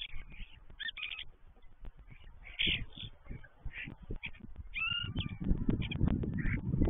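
European starlings singing: short bursts of clicks, chatter and whistles, with a clear whistle about five seconds in. From about five seconds in, a low rumble swells beneath the song and becomes the loudest sound.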